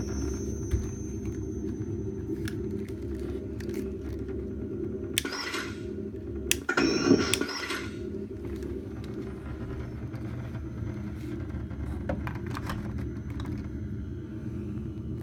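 Replica proton pack's electronic sound-effect kit giving a steady low hum, with two short hisses about five and seven seconds in.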